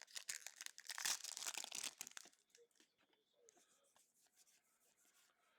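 A foil booster pack wrapper crinkling and tearing as it is opened, a burst of rustling for about two seconds.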